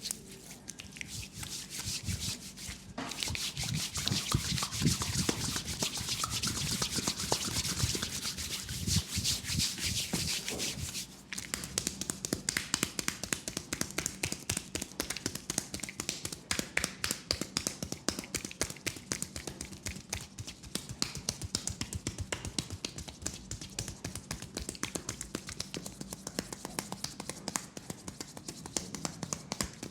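Leg massage: hands rubbing briskly over the skin for about eleven seconds, then a quick, steady run of tapping strokes on the leg.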